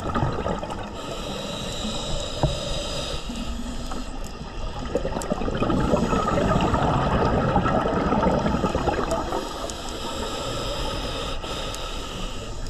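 Scuba diver's regulator heard underwater: a hissing inhale, then a long burble of exhaled bubbles, then another hissing inhale near the end.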